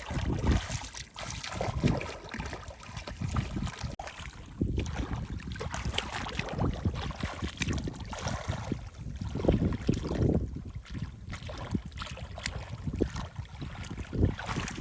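Irregular splashing and sloshing in shallow water, with wind rumbling on the microphone.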